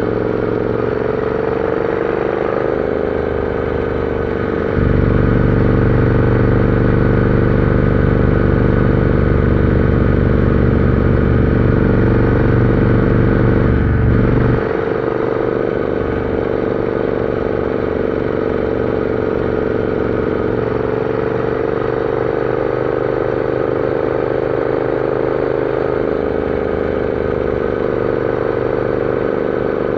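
Royal Enfield Interceptor 650's parallel-twin engine running at a fairly steady speed while the motorcycle is ridden. A louder low rumble joins it from about five seconds in and cuts off about fifteen seconds in.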